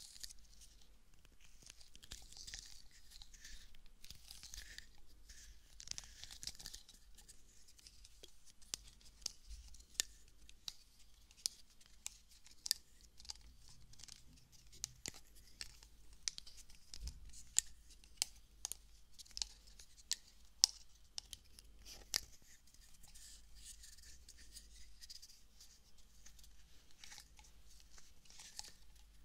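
Close-up ASMR trigger sounds at a binaural dummy-head microphone. A soft, high rustling for the first several seconds gives way to a long run of sharp taps and clicks from small bottles handled at the microphone's ears, then soft rustling again near the end.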